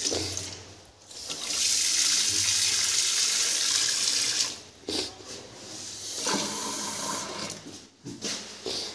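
Water from a wall-mounted chrome mixer tap pouring into a stainless steel kitchen sink. The flow is strong for the first few seconds, then drops to a quieter run about halfway through.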